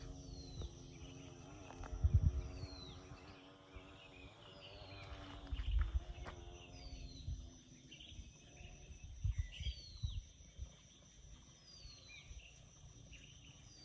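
A bird repeating a short, high, falling note every one to two seconds. Under it, a low steady hum fades out about halfway through, and there are irregular low thumps.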